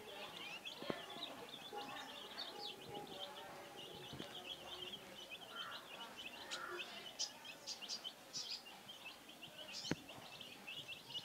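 Young chicks peeping without pause, a rapid stream of short high cheeps, with some sharper, higher calls in the second half.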